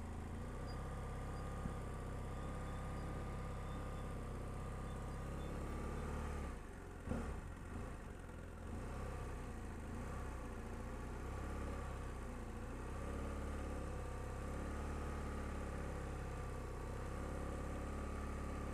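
BMW F800GS parallel-twin engine running at low, steady revs under slow, clutch-controlled riding, with a brief dip and a small knock about seven seconds in.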